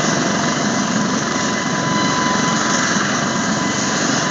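Eurocopter Dauphin II helicopter's twin turboshaft engines and rotor running on the ground before takeoff: a steady turbine whine over a loud, even rush of rotor and exhaust noise.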